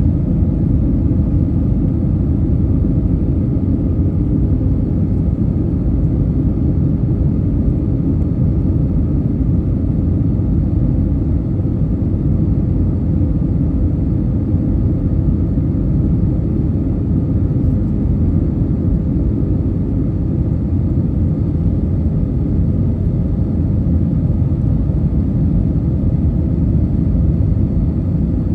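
Airbus A320 cabin noise on approach: a steady, loud rumble of engines and rushing air, with a steady drone on top, holding even throughout.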